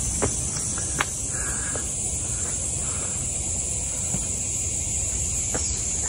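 A steady, high-pitched insect chorus in summer woodland, with a few soft footsteps on the path and low wind rumble on the microphone.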